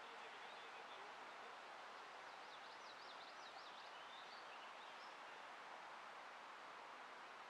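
Faint outdoor ambience: a steady low hiss, with a bird's rapid up-and-down trill about two and a half seconds in, lasting about a second.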